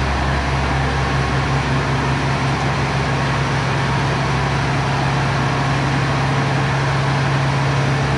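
John Deere row-crop tractor's diesel engine idling steadily.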